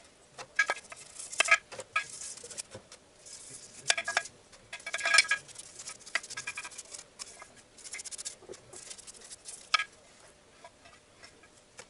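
A brush scrubbing the inside of a metal CVT oil pan during cleaning, with irregular scraping strokes and light clatters of the pan, played back sped up.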